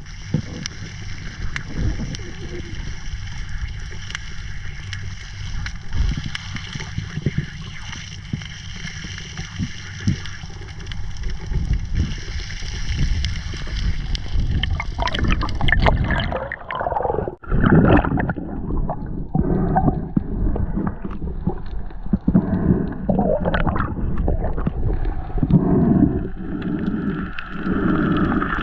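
Water gurgling and sloshing around a diver in the sea, muffled at first, then turning to louder, irregular splashing about halfway through.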